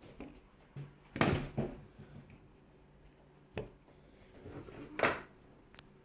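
Handling noise from a phone pressed against plush toys and a fabric blanket: several short rustles and bumps, the loudest about a second in and about five seconds in, over a faint steady low hum.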